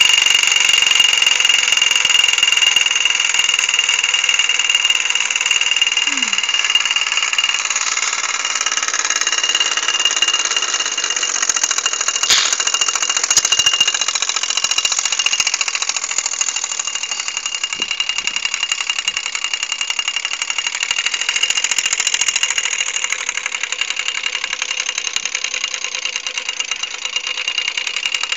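Mamod Minor 1 toy steam engine running steadily, its single oscillating cylinder exhausting steam in a continuous chuffing rattle with a high hiss. It is running below its usual speed and not performing well, which the owner puts down to the freezing cold.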